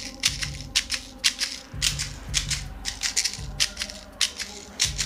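Airsoft guns firing in an enclosed house: sharp, irregular cracks several a second, with a low pulsing beat of background music underneath.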